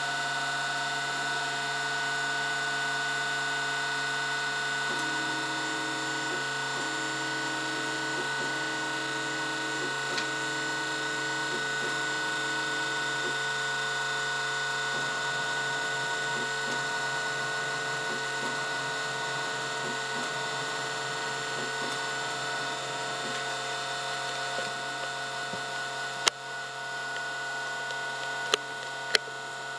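Stepper motor of a home-built 3D printer's belt-driven Z axis running through a two-stage pulley reduction: a steady mechanical whine made of several held tones. A few sharp clicks come near the end.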